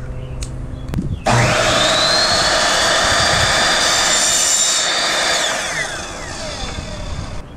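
Ryobi sliding miter saw started about a second in, its motor whining up to speed and running while the blade cuts through PVC pipe. About five seconds in the whine falls away as the blade spins down.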